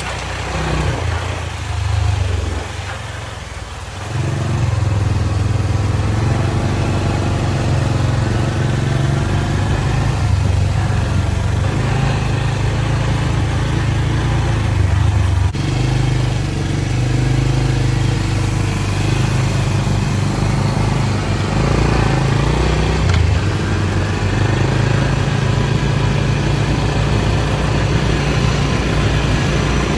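Four-wheeler engine running steadily under load while towing a chain-link fence drag; it picks up about four seconds in and holds a fairly even pitch after that.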